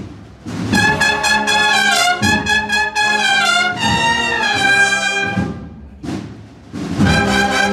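A marching cornet band (banda de cornetas) playing a processional march, many cornets sounding the melody together in sustained, stepping notes. The phrase dies away about six seconds in and the cornets come in loudly again just before the end.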